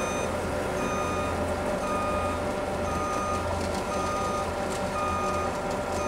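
A vehicle back-up alarm beeping about once a second, each beep about half a second long, over the steady running of a diesel truck engine.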